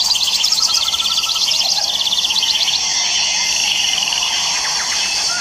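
Outdoor birdsong and insect chirring: a fast, high, pulsing trill that fades about three seconds in, leaving a steady high hiss with scattered chirps.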